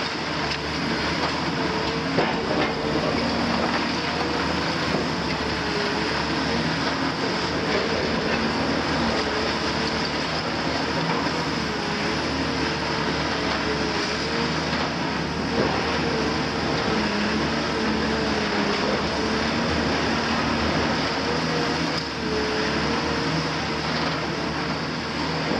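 Cat 340F UHD demolition excavator working under load: its Cat C9.3 diesel engine and hydraulics run steadily with a wavering whine, while the demolition attachment crushes concrete and masonry and rubble clatters down. A couple of louder knocks stand out, about 2 s in and just past halfway.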